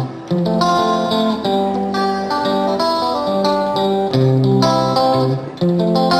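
Background music: guitar playing a melody of plucked notes with strummed chords.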